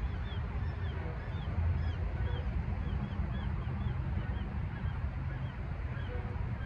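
Small birds chirping: short, high, arched notes repeated a few times a second, over a steady low rumble.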